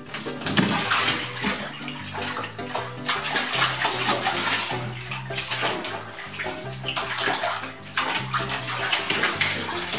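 Bathtub water splashing and sloshing as a long-haired cat thrashes about in a filled tub, starting about half a second in and going on in irregular surges.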